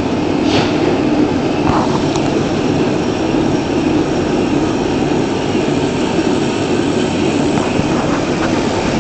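Automatic scourer-making machine running: a loud, steady mechanical hum and rattle, with a few faint clicks.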